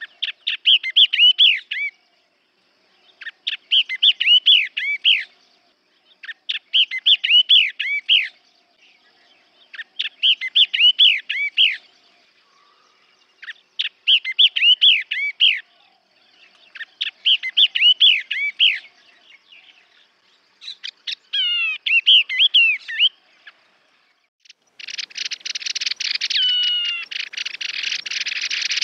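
Yellow-eyed babbler singing: short phrases of quick rising and falling whistled notes, repeated about every three seconds. About 25 seconds in, the song gives way to a dense, steady hiss with a few falling whistled notes over it.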